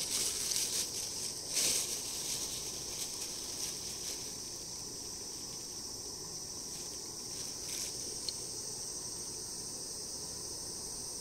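Steady, high-pitched insect chorus droning throughout, with brief rustles of handling in the first two seconds and again about seven and a half seconds in.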